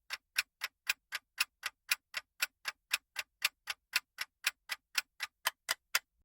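Clock-tick sound effect ticking evenly, about four ticks a second: a quiz countdown timer running out the guessing time.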